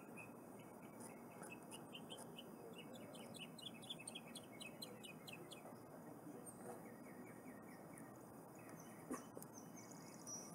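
Faint bird chirping: a quick run of short, high notes starting a second or two in and lasting a few seconds, then a few quieter chirps later. A single faint click near the end.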